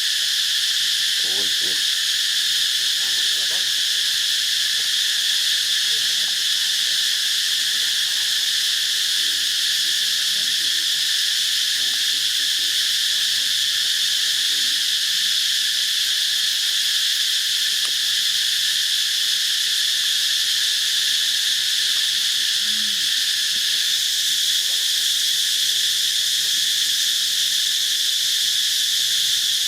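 Steady, high-pitched insect chorus, a dense shrill that holds at an even level, with faint low sounds underneath in the first few seconds.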